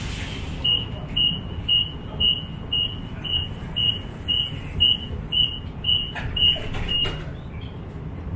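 Inekon Trio Type 121 streetcar sounding a high warning beep about twice a second, roughly thirteen beeps, typical of the doors-closing warning, with a few sharp knocks near the end as the doors shut.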